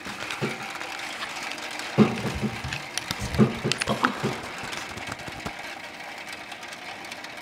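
Streams of water drops pattering into an aluminium foil pie dish of a Kelvin's thunderstorm water-drop generator, with several sharp knocks and clicks between about two and four and a half seconds in.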